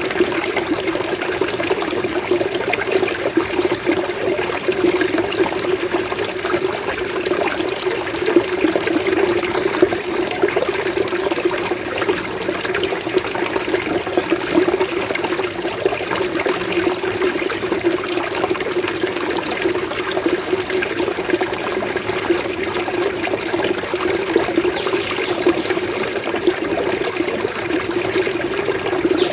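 Running water burbling steadily, a continuous gurgling flow.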